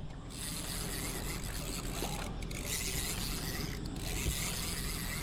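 Fishing reel being cranked steadily, a continuous mechanical whirr of fine, even clicking, as a small tilapia on the line is reeled in.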